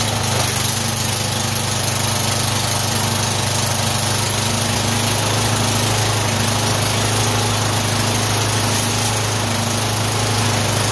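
MTD lawn tractor's engine running steadily at a constant speed, with no change in pitch or load.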